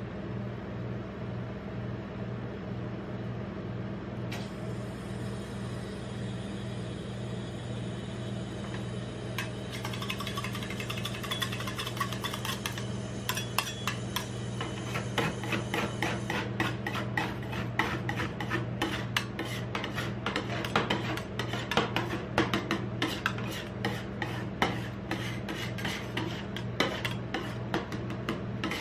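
Dr Pepper fizzing as it is poured onto a steel ice-cream-roll freezing plate, then two metal spatulas chopping and scraping on the plate in quick, clattering strokes that grow dense and loud as the soda freezes. Throughout there is a steady low hum of the machine.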